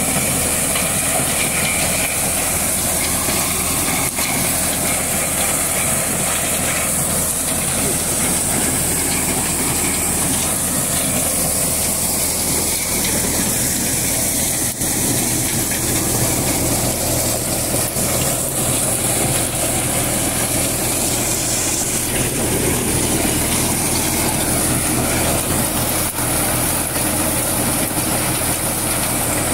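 Tractor engine running steadily under load, driving a PTO-powered corn sheller as ears of corn are fed through it. The engine's steady low hum sits under a loud, steady high hiss from the spinning sheller.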